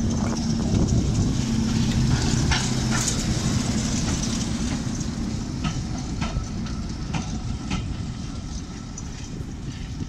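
Class 08 diesel shunter D3937's six-cylinder diesel engine running as the locomotive draws its brake vans slowly past, with several sharp clanks as the train rolls by. The engine sound fades as the train moves away.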